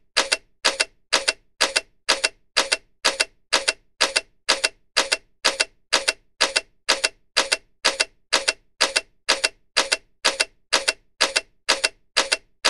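Camera shutter click sound effect, repeated at a steady rate of about two clicks a second.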